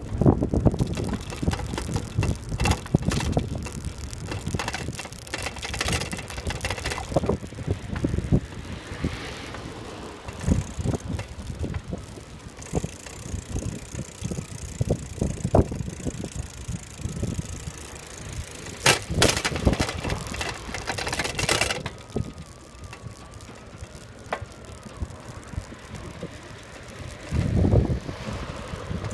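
Bicycle rolling along an asphalt path: tyre rumble with irregular rattling clicks and knocks from the bike, and wind on the microphone.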